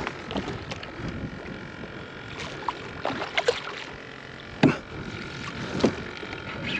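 Scattered light knocks and clatter of handling in a fishing kayak, with two louder knocks in the second half, over a faint steady hiss.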